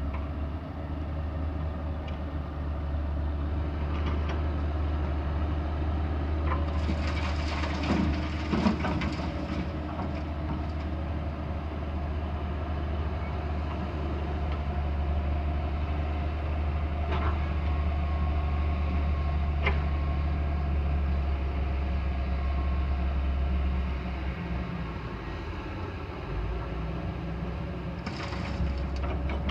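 Hydraulic excavator's diesel engine running steadily with a deep drone, with louder scraping and clatter about a third of the way in, a couple of short knocks later, and more clatter near the end.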